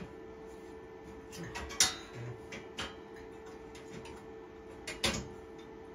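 Laser-cut steel frame parts clicking and tapping against each other as they are worked into their slots by hand: a few short, sharp metallic clicks, the loudest about two seconds in. A faint steady hum runs underneath.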